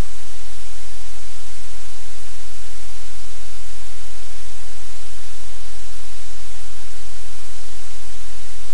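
Loud, steady static hiss with a low hum underneath, unchanging throughout; no other sound stands out.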